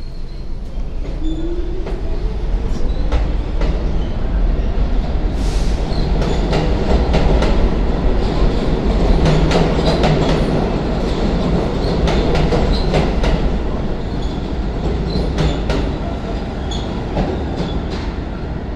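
New York City subway train running through the station with a heavy rumble and wheels clicking over rail joints. It builds to its loudest about halfway through, with a rising whine in the first few seconds.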